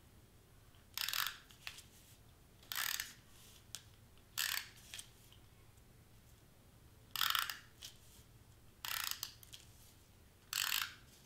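Handheld tape runner rolled in short strokes along the edge of a foam letter, laying double-sided adhesive tape: six brief zipping strokes, about one every one and a half to two seconds.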